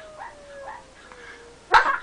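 Dog whining faintly in a thin, slowly falling tone, then about three-quarters of the way through it lets out a loud, sudden call whose pitch falls.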